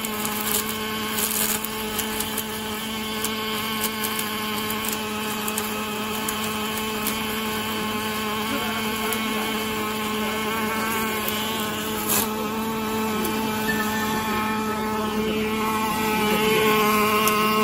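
Automatic pulley circular-seam welding machine arc-welding a pulley's inner seam with a wire-fed torch: a steady hum with a few sharp crackles.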